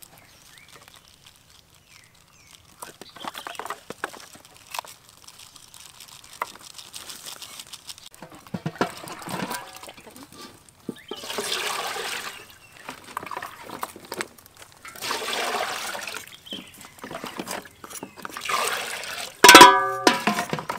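Water sloshing and splashing in a basin as it is worked by hand, in several separate bursts with small knocks between them. Near the end there is a short, loud pitched call.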